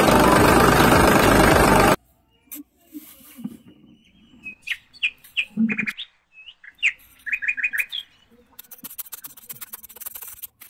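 Background music that cuts off suddenly about two seconds in. Quiet follows, with birds chirping in short high calls, including a quick run of four chirps. Near the end, a small hand trowel scrapes and digs into gritty sand in a rapid run of scratchy strokes.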